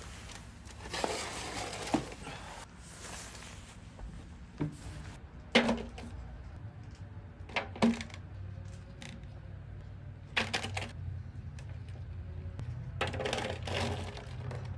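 Food being handled in a disposable aluminium foil pan: foil crinkling about a second in, then a series of separate sharp taps and clicks as cheese cubes are set down on the thin metal. Near the end comes a short rattling rush as corn kernels are poured in.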